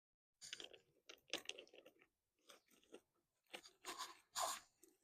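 Faint, irregular crunching and scraping, a string of short scuffs with the loudest near the end.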